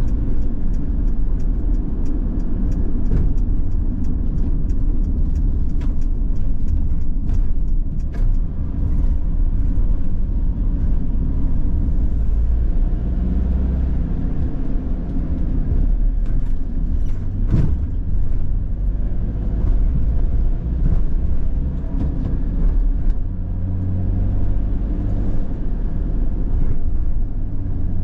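Van driving, heard from inside the cab: steady low engine and tyre rumble, with a few short sharp clicks or rattles, the loudest about halfway through.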